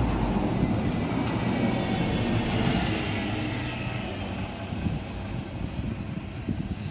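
Solaris Urbino 18 articulated city bus passing close by and pulling away, its engine running and tyres on the road. The sound fades over the last few seconds as it drives off.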